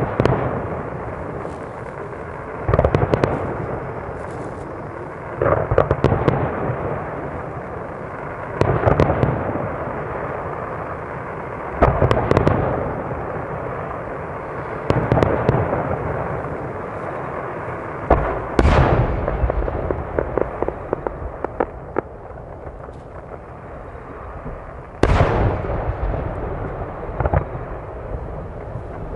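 Aerial firework shells bursting, a deep boom about every three seconds, each echoing away, with scattered crackling between them and a longer gap before the last burst near the end.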